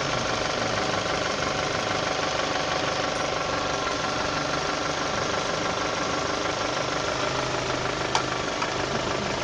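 Toyota Vista's engine idling steadily, running on the alarm's remote autostart. A single sharp click about eight seconds in.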